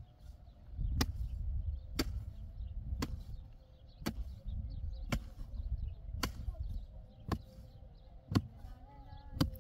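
A sharp chopping or knocking strike repeated steadily about once a second, around ten strikes in all, over a low rumble.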